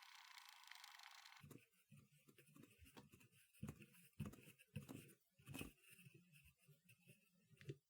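A quiet steady hiss that cuts off suddenly about a second and a half in, then irregular soft knocks and clicks of small objects being handled.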